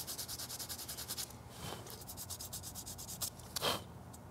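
A small 3D-printed plastic part being sanded by hand with a scrap of sandpaper: fast, even back-and-forth scraping strokes that stop a little over a second in. Quieter handling follows, with one short brushing rub near the end.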